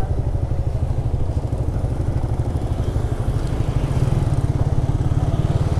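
Suzuki Bandit motorcycle's inline-four engine running steadily, a continuous rumble.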